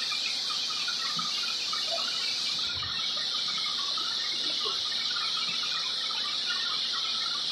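Steady high-pitched insect chorus, like cicadas or crickets, with faint scattered chirps and a few soft low knocks.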